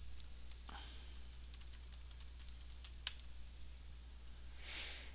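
Computer keyboard typing: a quick run of keystrokes lasting about two and a half seconds, then one louder click about three seconds in. A soft short hiss comes near the end, over a low steady hum.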